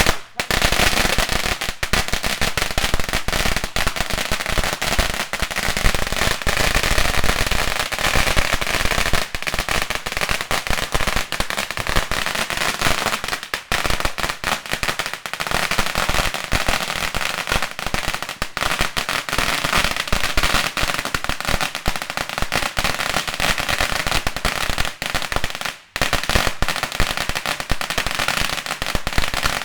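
A 10,000-count roll of firecrackers going off in one continuous, rapid chatter of bangs, with a brief gap about 26 seconds in.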